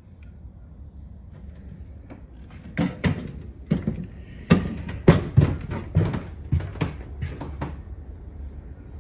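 A run of about a dozen sharp, irregular knocks and clicks over some five seconds, starting about three seconds in, over a low background hum.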